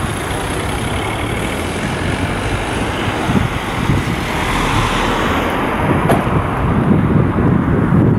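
Road traffic: cars driving past close by, one growing louder and fading away about halfway through.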